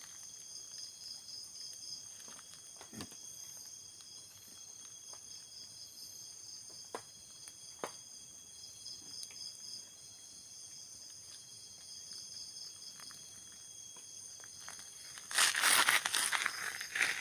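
Night insects chirring steadily at a high pitch, with a pulsing trill and a few faint ticks. About fifteen seconds in comes a loud burst of rustling and crunching in dry leaves and twigs close to the microphone, lasting about two seconds.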